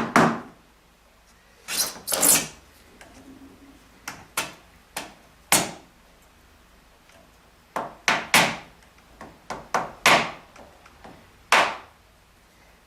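Sharp knocks and taps in irregular clusters as a storm-window frame is tapped with a plastic trim-removal tool to try to knock it loose. Among them is a longer, scraping knock about two seconds in.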